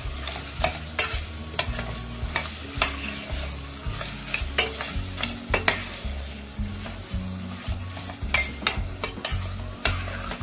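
Metal spoon stirring and scraping chicken, onion and peppers being sautéed in tomato paste in a stainless steel pot, with steady sizzling and frequent sharp clicks of the spoon against the pot.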